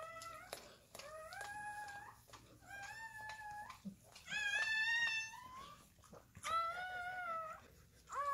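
Newborn Airedale Terrier puppy crying: a run of about six high, squealing cries, each about a second long, with short pauses between them. These are the thin cries of a puppy only minutes old.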